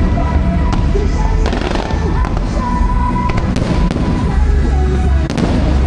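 Aerial fireworks bursting, with sharp cracks every second or so over a continuous low rumble of booms. Music plays underneath.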